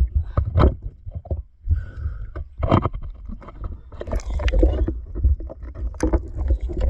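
Water noise picked up by an underwater camera: a constant low rumble with many irregular clicks and knocks, and a noisier splashing stretch about four seconds in.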